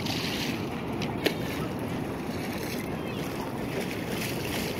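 Steady beach ambience: the wash of ocean surf with wind buffeting the microphone, and a single sharp click just over a second in.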